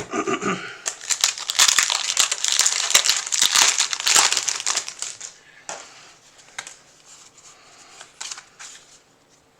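Foil wrapper of a Pokémon TCG booster pack being torn open and crinkled for about four seconds, then a few soft clicks and rustles as the cards are handled.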